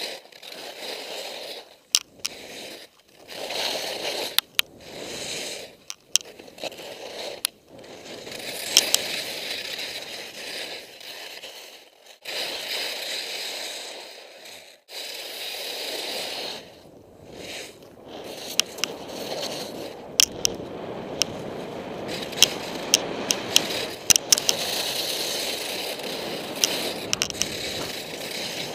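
Skis scraping over hard, textured snow in a run of linked turns, each turn a surge of scraping with short lulls between. Sharp clicks and knocks come through, more often in the second half.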